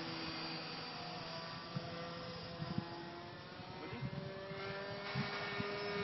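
Model airplane's OS .46 two-stroke glow engine droning steadily as the RC P-51 Mustang flies at a distance.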